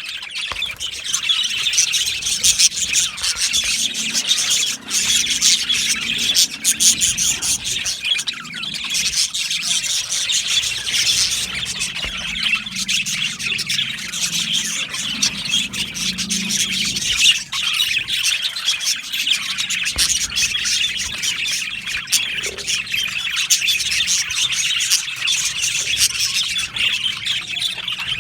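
A colony of budgerigars chattering, many birds chirping and squawking at once in a dense, continuous warble.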